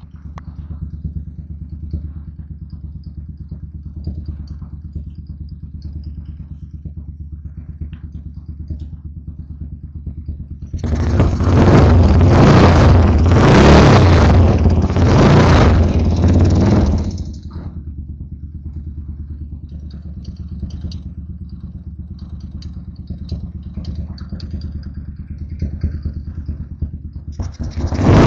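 Yamaha SR500's air-cooled single-cylinder four-stroke engine running just after a kickstart: idling steadily, then revved in several surges for about six seconds in the middle, back to idle, and revved again at the very end. The engine is freshly rebuilt and not yet tuned.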